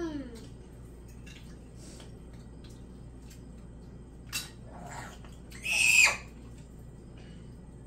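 A young child's voice: a wailing cry trailing off at the start, a short vocal sound about five seconds in, then a loud, shrill squeal about six seconds in. Faint clicks can be heard in between.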